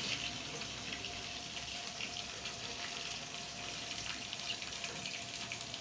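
Chopped tomatoes frying in hot oil with browned onions and garlic in a steel karahi: a steady sizzling hiss with many small crackles and spits.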